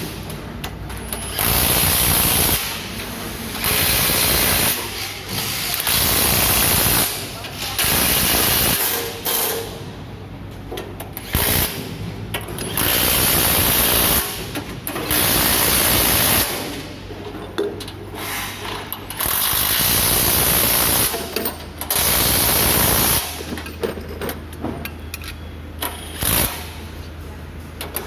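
A power tool on an excavator assembly line running in short bursts of about a second each, roughly every two seconds, a dozen or so times, over a steady low machinery hum.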